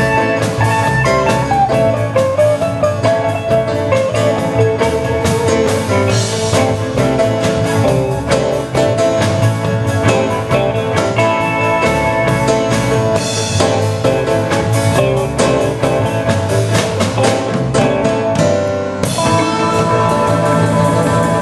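Live rock band with electric guitars and a drum kit playing an upbeat dance-rock tune. About 19 seconds in the drums stop and the chords ring on.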